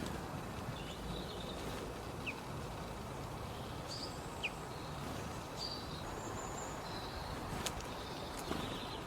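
Small birds chirping now and then in short high calls, with a sharp click near the end, over a steady low background noise.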